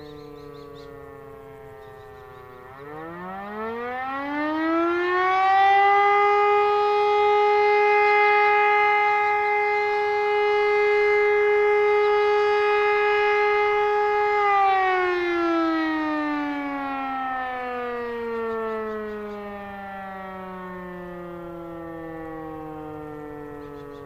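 German E57 motor-driven civil defence siren sounding the fire alarm signal. It is still winding down at first, then about three seconds in it winds up to a steady wail, holds for about nine seconds, and slowly winds down again.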